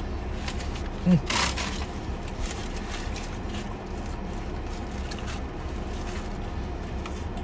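Steady low rumble inside a car cabin, with a short hummed "mm" and a brief rustle of the foil sandwich bag about a second in, then faint eating as a fried chicken sandwich is bitten into.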